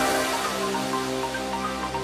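Electronic pop music with held chords over a steady bass, in an instrumental gap between sung lines.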